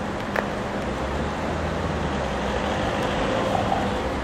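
Alstom Citadis 302 tram standing at a stop, its onboard equipment humming steadily, with a single short click about half a second in.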